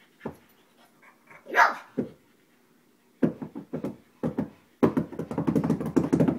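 Pugs barking during rough play: a few single barks, then a quickening series that becomes a rapid flurry of barking near the end.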